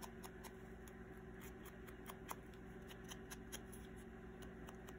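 Faint, irregular little taps and scuffs of a foam ink dauber dabbing distress ink onto the edges of a small cardstock cutout.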